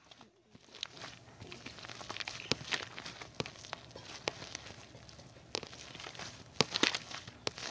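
Hands kneading and squishing white slime: a continuous wet crackle with sharp pops scattered through it, several close together near the end.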